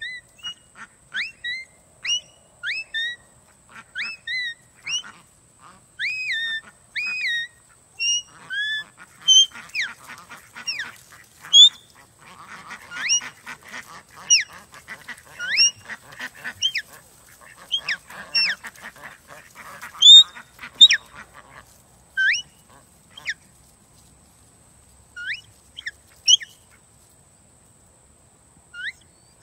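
A small flock of domestic ducks calling: a string of short calls rising in pitch, one or two a second, thickening into a burst of busy quacking in the middle, then thinning out to scattered calls near the end.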